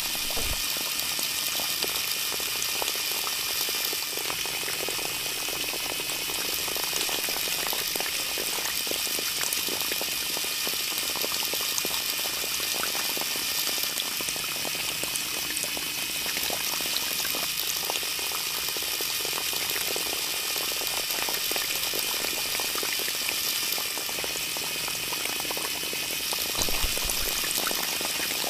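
Thin stream of water from a miniature model water pump pouring steadily into a small basin, an even trickling splash. A brief low bump near the end.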